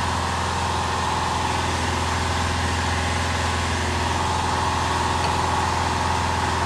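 A motor running with a steady low hum, unchanging throughout.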